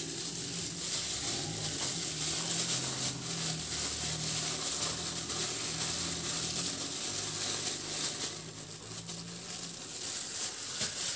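Cottage cheese squeezed out of a cloth bag into a ceramic bowl: soft crumpling and squishing of the cloth and crumbly curd, over a steady hiss and low hum.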